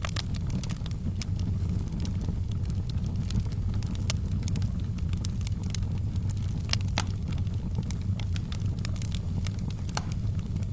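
Wood fire burning in a fireplace: a steady low rumble of the flames with sharp crackles and pops at irregular moments, a few louder snaps among them.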